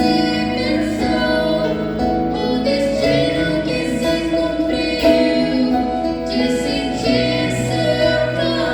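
A female voice singing held, wavering notes over instrumental accompaniment.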